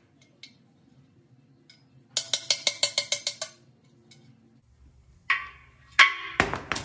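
Metal-on-metal strikes on the cast-iron 440 block as its steel core plugs are knocked out: a quick run of about ten sharp hits around two seconds in, then a few louder, ringing blows near the end.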